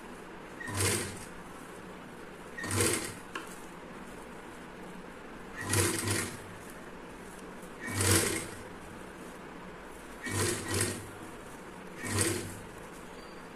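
Sewing machine running in short bursts of under a second, about every two seconds, stitching down pleats in the fabric one at a time.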